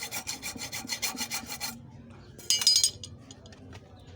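Hacksaw blade rasping back and forth on metal in quick, even strokes, scoring a mark. The strokes stop about a second and a half in, and about a second later there is a brief, louder metallic scrape.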